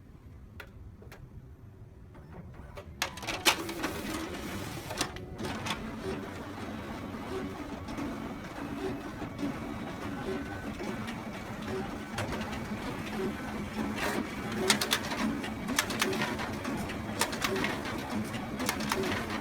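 Photocopier starting up about three seconds in with a sharp click, then running steadily with a regular pulsing whirr and scattered clicks as it copies.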